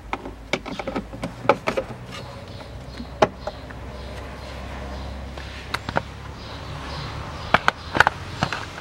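Plastic cabin-air-filter cover clicking into place behind a car's glovebox: a quick series of sharp plastic clicks and taps over the first few seconds. Near the end comes another cluster of clicks and knocks as the lowered glovebox is handled and lifted.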